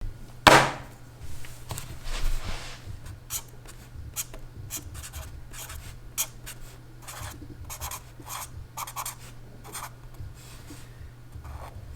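A run of short scratching strokes, like writing or scraping on a surface, with a sharp knock about half a second in and a steady low hum underneath.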